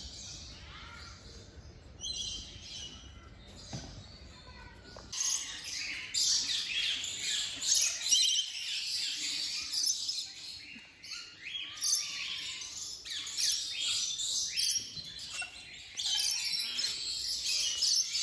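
Many small aviary birds chirping and twittering together. The chirping is sparse at first and becomes a dense, continuous chorus from about five seconds in.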